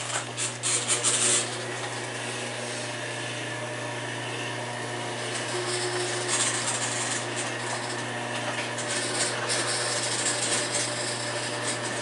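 Electric garage door opener raising a sectional garage door: a steady motor hum with the rattle of the door moving up its tracks, the rattling loudest in the first second or so.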